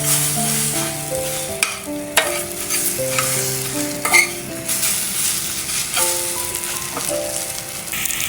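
Food sizzling as it fries in a pan, with a few sharp knocks of a utensil stirring it, under soft background music with a gentle melody.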